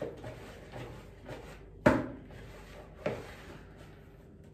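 Smooth yeast dough for pide being kneaded and pressed into a mixing bowl in the last kneading before it is left to rise. It gives a few dull thumps, the loudest about two seconds in.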